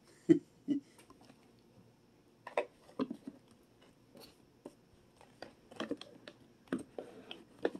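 Scattered clicks, knocks and rustles of a plastic dinosaur toy and its cardboard box being handled and moved about, with two sharp knocks in the first second and a quicker run of clicks near the end.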